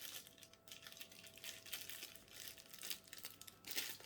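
Protective plastic wrapping crinkling and rustling as it is handled, in irregular crackles, loudest near the end.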